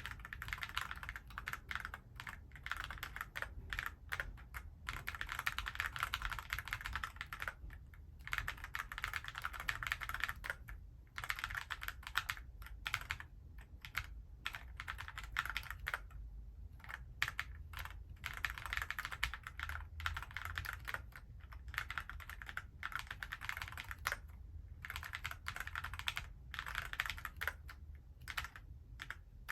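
Continuous typing on an Alice-layout mechanical keyboard: a dense run of key clacks, with brief pauses between bursts.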